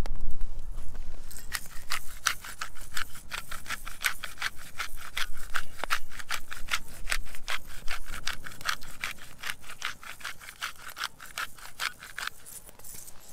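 Hand-twisted spice grinder grinding over the pot: a rapid run of sharp clicks that starts about a second in and stops shortly before the end.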